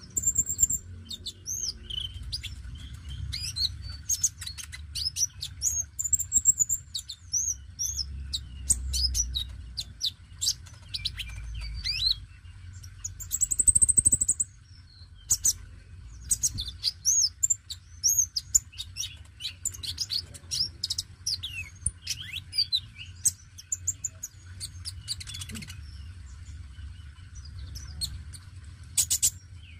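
Male Van Hasselt's sunbird (kolibri ninja) singing: a fast, continuous run of high, thin chirps and short trills, with a louder drawn-out high note about halfway through.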